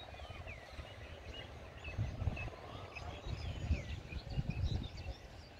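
Small birds chirping, many short rising and falling calls, over irregular low rumbles that swell about two seconds in and again near the end.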